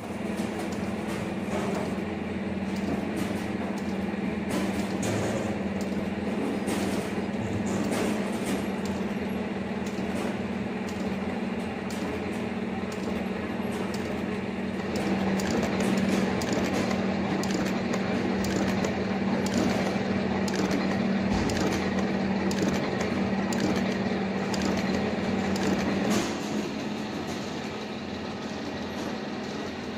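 Soap-making machinery running: a steady motor hum with frequent clicks and clatter from the working parts, quieter near the end.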